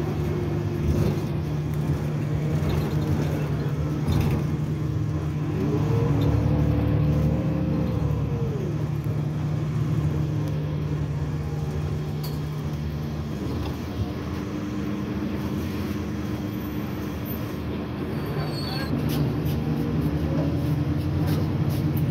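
Irisbus Citelis city bus heard from inside the passenger cabin while moving: a steady low engine hum, with a note that rises and falls back about five to nine seconds in as the bus speeds up.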